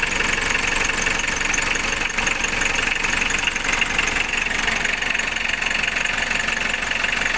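Rebuilt diesel engine idling with a steady, fast clatter. It runs rough and shakes at idle, a fault that remains after the full rebuild and the injection pump and injector line work.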